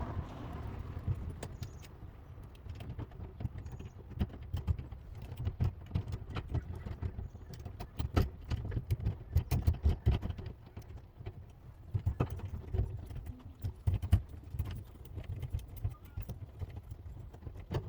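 Lock-picking tools working in the pin-tumbler cylinder of a front door lock: irregular small metallic clicks and scrapes as the pins are worked, over a steady low rumble. The lock has sticky pins that are not setting.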